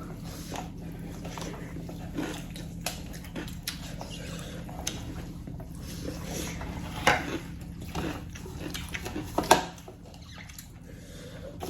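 Close-up eating sounds: wet chewing and lip smacks while eating spicy chicken, with a couple of louder smacks about seven and nine and a half seconds in.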